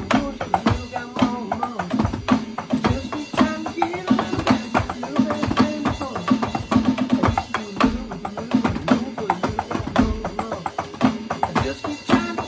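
Electronic drum kit played with sticks, a steady run of rapid beats along with music.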